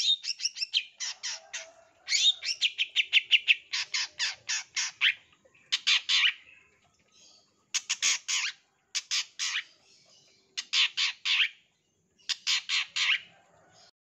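A long-tailed shrike (cendet) singing vigorously. It gives bouts of rapid, sharp, high notes, several a second, with short gaps between bouts: the rapid 'tembakan' bursts of a full cendet song.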